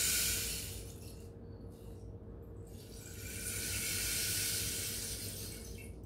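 Rain stick tipped over and back, its filling trickling down inside with a soft rushing hiss. The first pour fades out within the first second, and a second pour swells from about three seconds in and dies away near the end.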